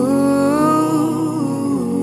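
Background music: a song's opening, with a voice holding one gently wavering note over sustained chords; the note fades near the end.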